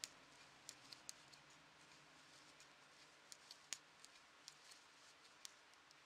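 Knitting needles clicking lightly as stitches are knitted, a dozen or so faint clicks at uneven intervals over quiet room hiss.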